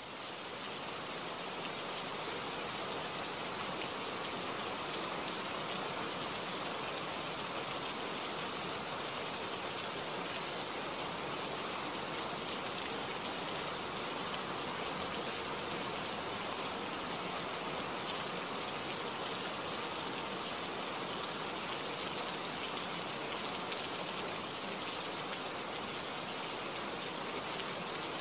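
Steady rain falling, an even hiss of many drops with no thunder, swelling slightly over the first couple of seconds and then holding level.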